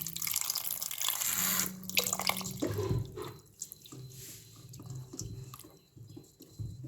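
Running water splashing, strongest for the first two and a half seconds and then thinner and quieter.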